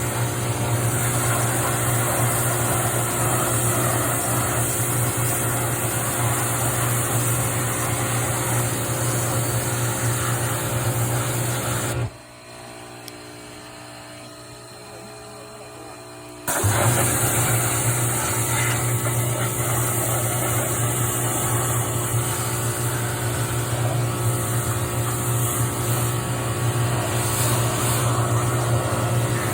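Pressure washer running with its water jet spraying, a steady hum under a broad hiss. About twelve seconds in the noise drops away sharply for around four seconds, then comes back on at full strength.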